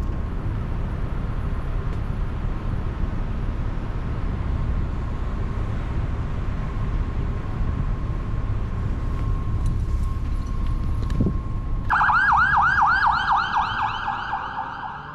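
Steady low street rumble for about twelve seconds, then an emergency vehicle's siren cuts in suddenly in a fast yelp, rising and falling about four times a second, and fades right at the end.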